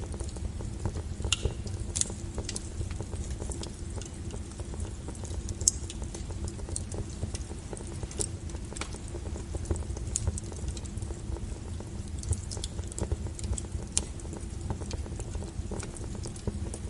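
Wood fire burning with a steady low rumble and frequent irregular crackles and sharp pops from the burning logs.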